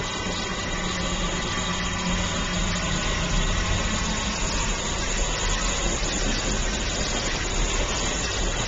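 NGG16 Garratt steam locomotive No. 143 simmering while it stands, with a steady hiss and rumble and no exhaust beats.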